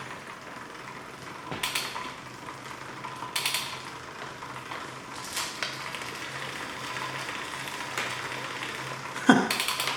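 Bicycle drivetrain being tested: the rear wheel's freehub buzzes steadily as the wheel spins, with a few separate clicks of the gears being shifted and a sharper clunk near the end.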